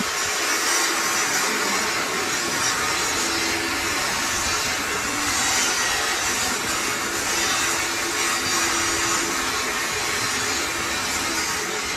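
Workshop machine running steadily with a continuous hissing, whirring noise and a faint hum through the middle.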